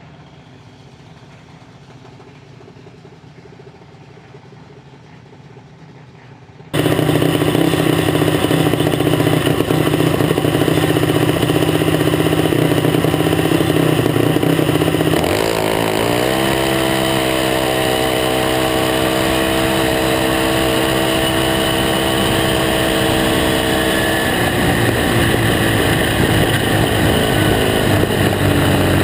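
A race car engine running loudly at a steady speed, starting abruptly about seven seconds in after quieter background noise. Its pitch rises slightly about halfway through and holds, then shifts again near the end.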